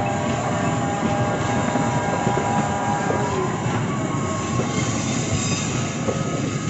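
Train passing close by: a steady, loud rumble and rush of wheels on rails, with faint squealing tones from the wheels.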